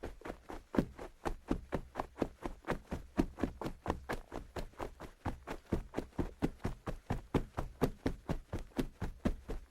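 Quick footsteps on a hard floor, an even run of steps at about three to four a second, a fast walk or a jog.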